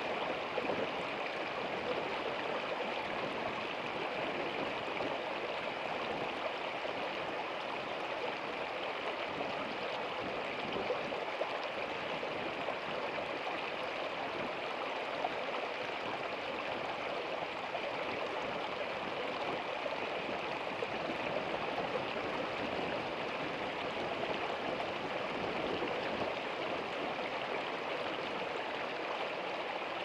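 Shallow stream flowing over rocks: a steady rushing and splashing of water that does not change.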